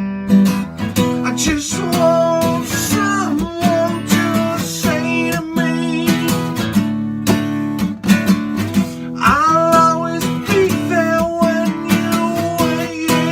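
Acoustic guitar music with no sung words: strummed chords under a melody line that bends between notes, an instrumental break in the song.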